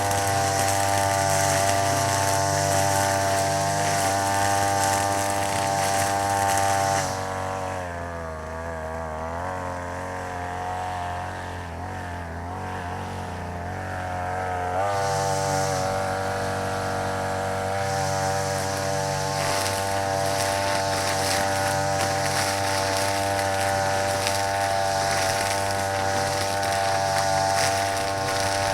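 Brush cutter engine running at high revs. It eases off and wavers in pitch for several seconds partway through, then comes back up to full speed.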